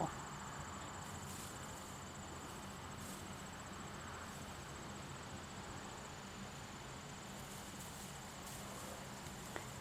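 Insects trilling steadily outdoors: a faint, high, rapidly pulsing drone over a low background hiss.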